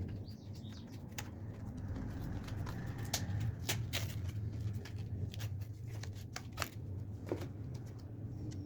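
Scattered light clicks and taps, about a dozen, over a steady low hum.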